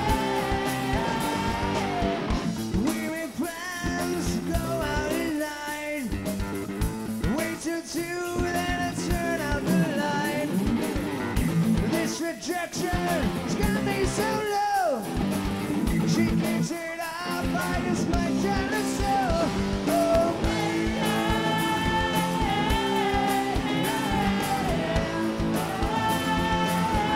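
Live rock band playing electric guitars, bass and drums, with singing over it. The music drops back briefly several times in the first half, then runs on steadily.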